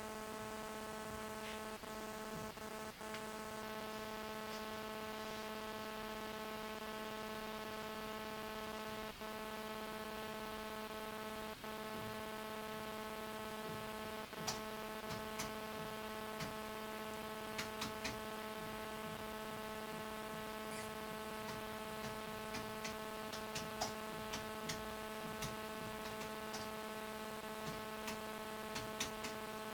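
Steady electrical hum made of several unchanging tones, with faint scattered clicks in the second half.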